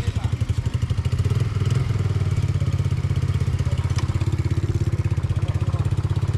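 Quad bike (ATV) engine idling with a steady, rapid, even pulse.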